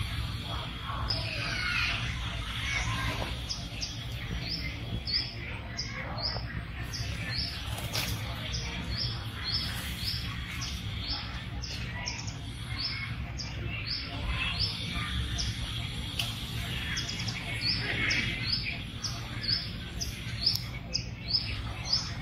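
Outdoor ambience: a bird calling in short high chirps, about two a second, over a steady low rumble.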